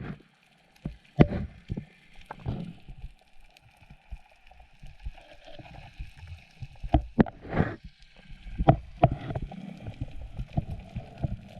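Water moving and gurgling around a diver's action camera, with irregular sharp knocks and taps against it.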